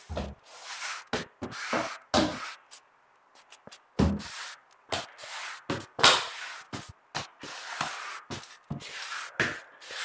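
Rubber floor squeegee scraping and pushing water across a wet cement floor in repeated, irregular strokes, with a few dull knocks among them.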